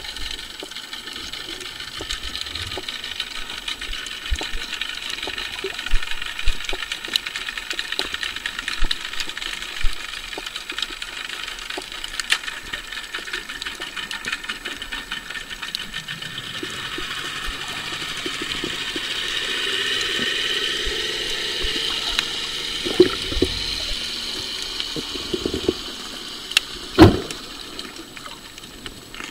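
Underwater sound picked up by a submerged camera: a steady whirring hiss scattered with sharp clicks, swelling louder past the middle, with a loud knock near the end.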